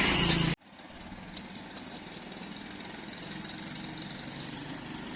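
A steady low mechanical hum that cuts off abruptly about half a second in, followed by a quieter steady machine hum with a few faint ticks, slowly growing louder.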